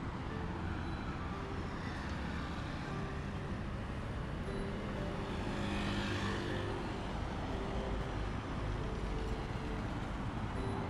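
Street traffic, a steady rumble with one vehicle passing close by, swelling and fading about halfway through.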